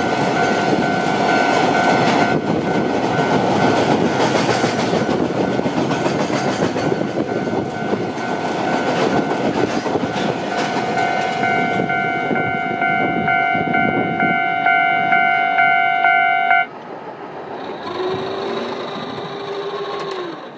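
Freight train of tank wagons rolling past close by, the wheels rumbling and clattering, while a level crossing warning bell rings in a steady pulse of about two or three strokes a second. The bell and most of the train noise stop suddenly about two-thirds of the way through as the train clears the crossing, leaving a fainter hum with a wavering tone.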